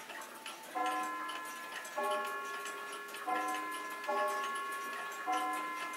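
French drum-head mantel clock with a visible Brocot escapement ticking steadily, over slow background music whose sustained notes change pitch every second or so.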